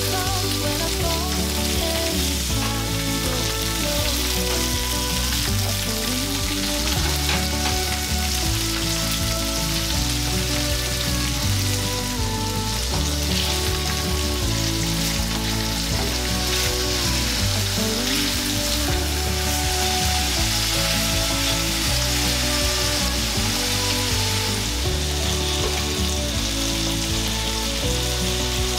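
Chicken thigh pieces sizzling steadily in oil and garlic in a stainless steel frying pan, with a few light clicks of tongs as the pieces are turned around the middle. Background music with steady chords plays underneath.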